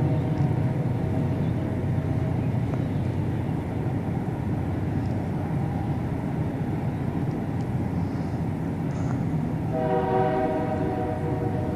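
The 'strange noise in the sky': a long, horn-like droning tone over a steady low rumble. The tone fades out about two seconds in and swells back near the end.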